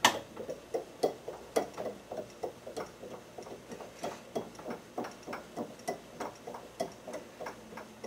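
A steady run of short, evenly spaced ticks, about three a second, while a table saw blade is tilted to a new angle against a ProMiter-100 digital miter gauge.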